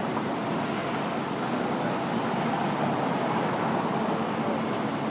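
Steady city street traffic noise, a continuous wash of passing cars, with a few faint high-pitched squeaks about two seconds in.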